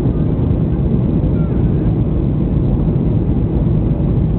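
Steady rumble of a Boeing 737-800's jet engines and rushing air, heard from inside the passenger cabin during the final moments of landing.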